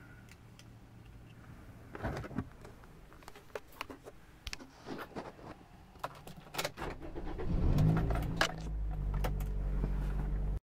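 Car keys jangling and clicking at the ignition, then a Toyota Celica's four-cylinder engine cranks and starts about seven and a half seconds in, settling into a steady low idle.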